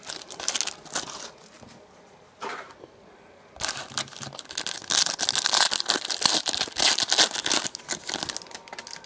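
Plastic wrapping on a sealed trading card box being torn open and crinkled by hand. It comes in two spells: a short one at the start, then after a brief pause a longer, busier stretch of crinkling.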